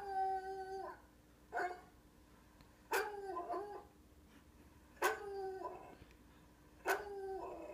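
Coonhound baying heard through a laptop's speakers: about five loud calls, roughly every two seconds, each starting sharply and held for up to a second.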